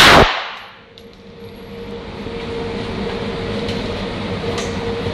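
A single pistol shot from a Springfield 1911A1, loud enough to clip the recording, ringing out in an indoor range. After it come a steady hum and a couple of faint clicks.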